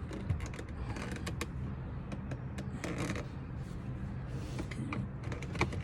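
Plastic door trim being worked loose by hand: scattered small clicks, scrapes and creaks of plastic over a low steady hum.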